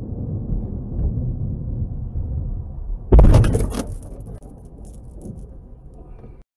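Low road and engine rumble inside a car. About three seconds in comes a single loud crash as an oncoming Lexus SUV hits the car head-on, followed by faint scattered clinks of debris.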